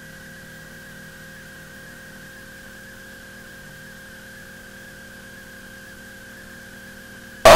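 Steady electrical hum and hiss from an aircraft intercom and radio audio feed, with a faint wavering whine; a voice cuts in right at the end.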